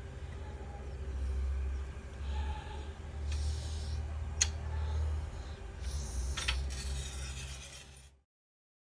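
Water and concentrate being swirled in a plastic gold pan, heard as a low rumble with rubbing and scraping noises and one sharp click about four and a half seconds in. The sound cuts off abruptly about eight seconds in.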